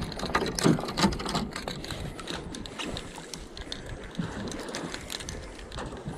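Fishing tackle handled by gloved hands right at the microphone: a busy run of small clicks, rattles and rubbing from a large stickbait lure and its gear, thinning out in the second half.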